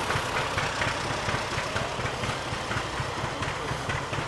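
Rumely OilPull tractor engine running steadily at a slow idle, with irregular light knocks and clatter over its low beat.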